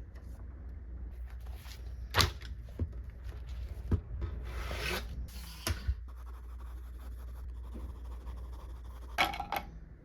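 Desk work sounds: several light, sharp taps and clicks and a brief scratchy rustle, over a low steady hum.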